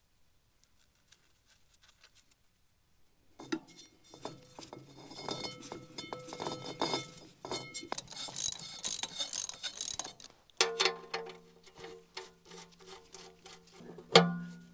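Near silence for about three seconds, then background music with plucked and bowed strings, held notes under quick plucked strokes, changing to a new set of notes about ten and a half seconds in.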